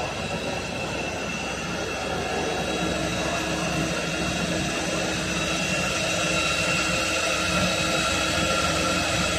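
CNC turn-mill lathe running as it machines a steel shaft: a steady machine drone with several steady high whines held throughout.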